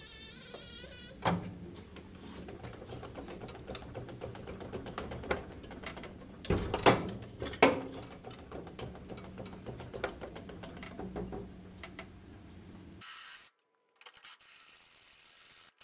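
A trolley jack being worked under a car's rear axle, with irregular ratcheting clicks and metal knocks from the jack and suspension, the loudest knocks a few around 7 s in. About 13 s in this stops abruptly and gives way to a fainter hiss.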